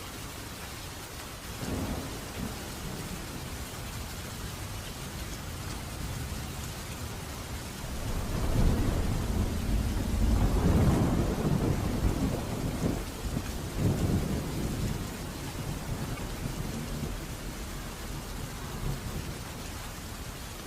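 Steady rain with thunder: a short low rumble about two seconds in, then a long rolling rumble that builds about eight seconds in, swells for several seconds and fades back under the rain.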